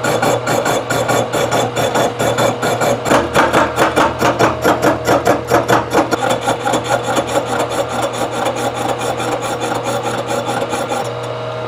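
Three-inch carbide-insert face mill on a milling machine cutting the cast iron flange of a warped exhaust manifold to true it flat: a rapid, even stream of insert strikes that pulses in loudness, over the steady hum of the spindle motor. The cutting stops about eleven seconds in, leaving the motor running.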